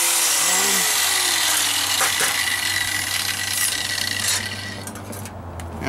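4.5-inch angle grinder with a cutoff disc coming off a cut through thin sheet metal and winding down after switch-off: its whine falls steadily in pitch over about two seconds and the sound fades away.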